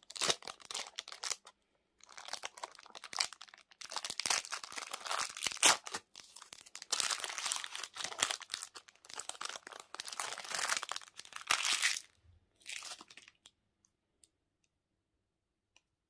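Plastic candy wrapper crinkling and tearing in a dense run of crackles. It stops about three-quarters of the way through, after one last short burst.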